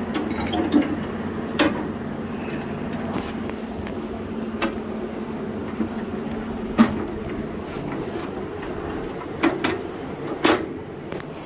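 Steel snowblower hitch frame and lift linkage being handled and fitted to a garden tractor: scattered metal clanks and knocks, the loudest two about seven and ten seconds in. Under them runs a steady hum that stops about seven seconds in.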